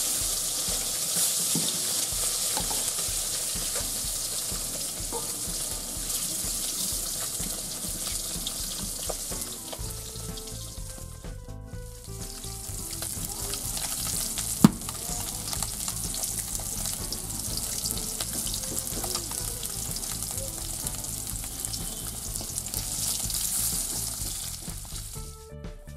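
Halved boiled eggs coated in turmeric sizzling steadily as they fry in hot oil in a metal kadai. The sizzle drops out briefly about 11 seconds in, and a single sharp click sounds about 15 seconds in.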